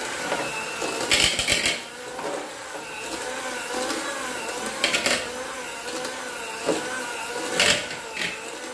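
Electric hand mixer running with its beaters in a pot of cooked chicken, shredding the meat. Its motor pitch wavers as the load changes, with a few brief louder knocks about a second in, around five seconds and near the end.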